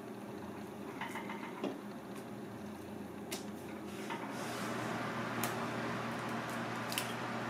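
Kitchen food prep: a steady low hum under a few scattered light knocks and clicks from knife work on a plastic cutting board. The background noise grows louder about four seconds in.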